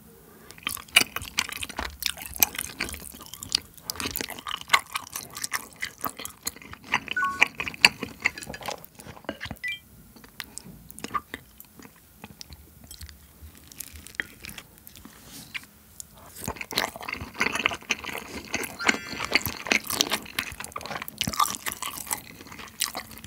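Close-miked eating: chewing a cheese rice cake and then braised spicy chicken with beef tripe, with many sharp wet mouth clicks and smacks. The chewing comes in bursts and is busiest near the end.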